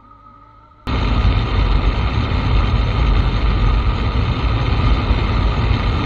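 Motorcycle riding at road speed, heard from a camera mounted on the bike: loud, steady wind noise over the microphone with the motorcycle running underneath. It cuts in abruptly about a second in, after a quiet stretch with a faint hum.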